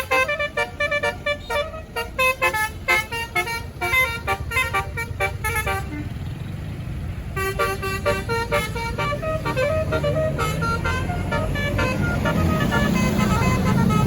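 Tour bus's telolet basuri melody horn playing a fast tune of short notes, breaking off about six seconds in and starting again a second or so later. Near the end a bus engine's rumble grows louder.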